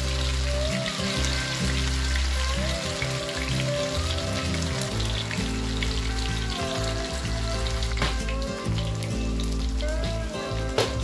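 Marinated fish slices sizzling steadily in hot oil in a frying pan, over background music. A few sharp taps near the end.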